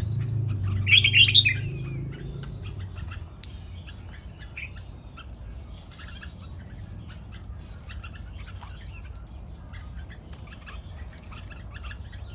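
Caged red-whiskered bulbuls calling: a loud quick cluster of short chirping notes about a second in, then scattered softer chirps and tweets.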